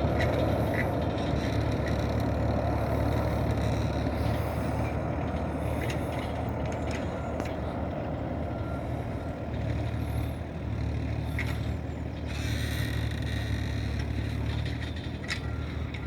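Steady low rumble and hiss of a Boeing 787's jet engines running on the ground, with scattered clicks and a few short high beeps.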